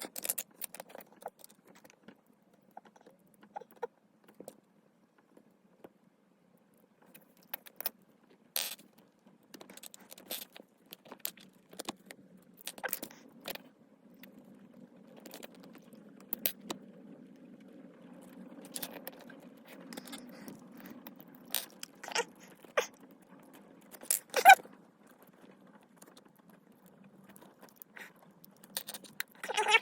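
Small plastic Lego minifigure pieces clicking and plastic packaging rustling as the figures are handled and put together, in scattered light clicks with one sharper snap about three-quarters of the way through.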